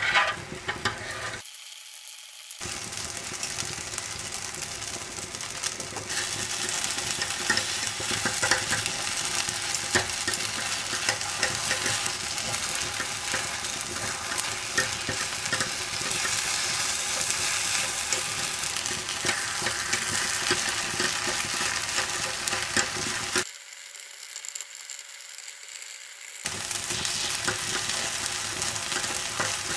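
Takoyaki batter sizzling steadily on a hot takoyaki plate, with scattered clicks and scrapes of metal takoyaki picks against the plate as the balls are separated and turned. The sizzle drops quieter briefly about two seconds in and again for a few seconds near the end.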